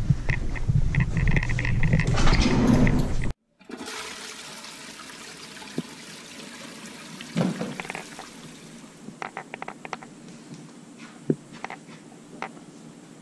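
Loud rushing noise mixed with clicks and knocks that cuts off suddenly about three seconds in, then a much quieter steady hiss with scattered light clicks and knocks.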